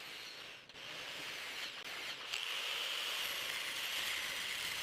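A faint, steady hiss, with a brighter high band coming in about two seconds in.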